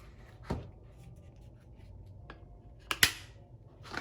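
A magnetic attachment snapping onto the nozzle of a Dyson Supersonic hair dryer, with light handling. There is a click about half a second in and a sharp double snap about three seconds in.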